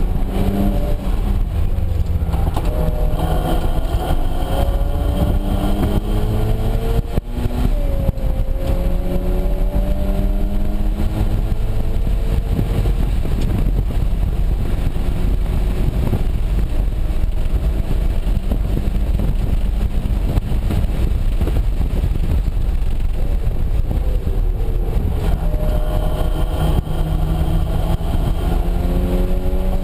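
Mazda RX-7's turbocharged rotary engine heard inside the cabin, pulling hard with its pitch climbing, a short dip about seven seconds in at an upshift, then climbing again. Through the middle it runs steadier under a constant road and wind rumble, and it rises once more near the end.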